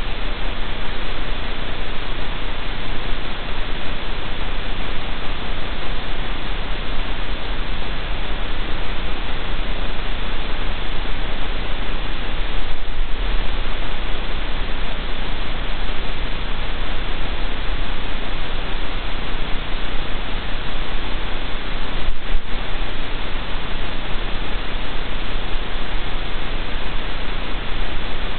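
Steady, loud static hiss from the livestream camera's audio feed, broken by two brief glitches, one about halfway through and one near three-quarters of the way.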